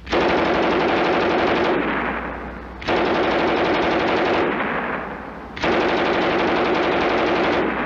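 MG34 machine gun firing three long bursts of fully automatic fire, each about a second and a half long. The first two bursts trail off in a fading echo before the next one starts.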